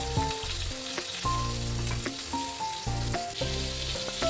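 Floured pork chops sizzling in hot oil in a frying pan, a steady hiss, under background music with a steady bass line.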